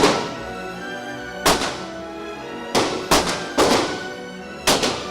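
Gunshots on an indoor shooting range, about eight sharp reports at uneven spacing, some in quick pairs, each with a short ringing tail, over background music.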